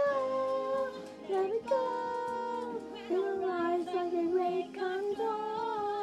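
A boy singing a high melody unaccompanied, holding long notes that slide from one pitch to the next.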